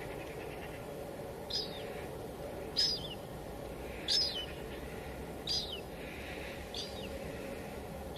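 Steady hiss of light drizzle, with a bird repeating a short, high, falling call five times, about once every second and a half.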